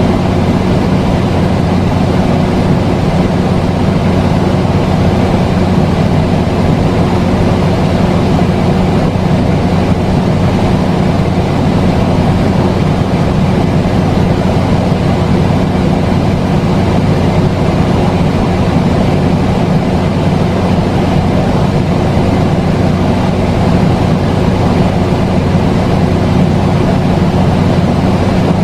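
A loud, steady drone: an even rushing noise with a constant low hum under it, unchanging throughout.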